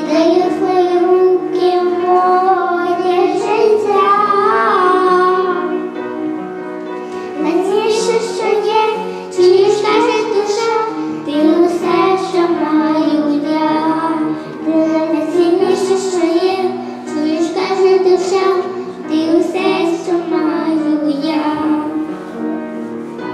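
Children singing a Christmas song with musical accompaniment.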